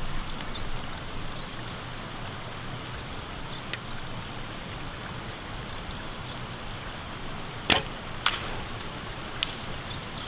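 A compound bow shot at a deer: a sharp snap as the bow is released, then a second sharp crack about half a second later as the arrow hits the deer, over a steady background hiss.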